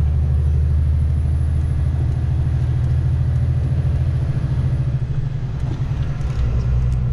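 Long-haul truck's diesel engine running with a steady low drone as the truck pulls away slowly. The drone drops briefly about five seconds in, then comes back strong near the end.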